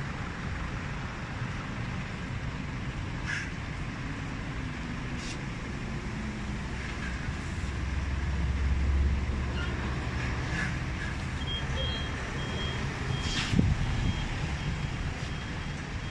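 Heavy truck hauling a loaded lowboy trailer, its diesel engine running and growing louder about eight seconds in. From about eleven seconds a reversing alarm beeps steadily, and a single sharp knock sounds a couple of seconds later.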